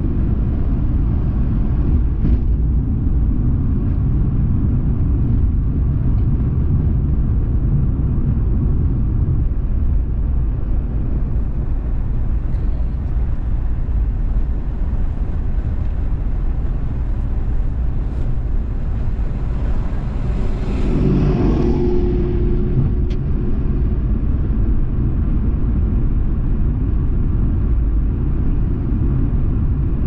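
Car driving at road speed: a steady low rumble of tyres and engine, with a brief swell of louder noise about two-thirds of the way through.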